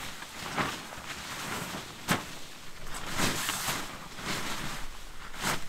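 Crunching and rustling of a person moving about on snow, irregular steps or shuffles about one or two a second, with one sharper click about two seconds in.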